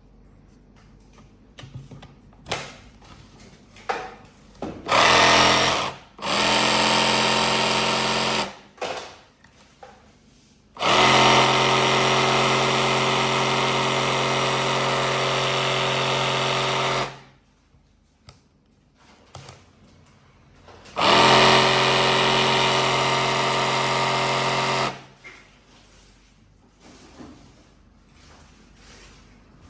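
Makita DJV186 18V cordless jigsaw running in four separate runs, the longest about six seconds, each a steady buzzing whir. Small clicks and handling knocks fall between the runs.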